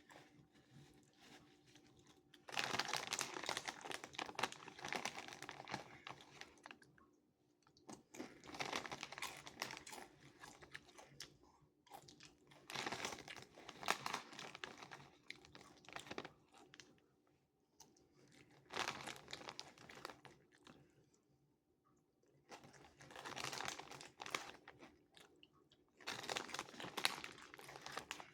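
Close-up crunchy chewing of loaded chips, in bouts of a few seconds separated by short pauses.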